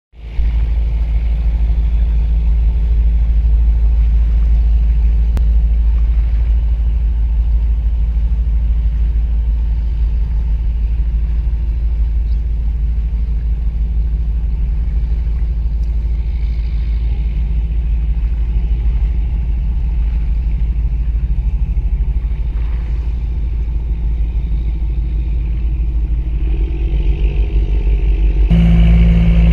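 Steady low engine rumble with wind and water noise, as heard from a boat on the harbour. About a second before the end, a louder, steady low tone with overtones comes in sharply.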